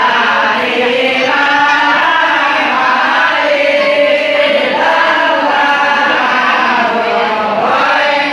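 A group of voices chanting together in a sustained, sung style, typical of the devotional chanting at a Maulid celebration.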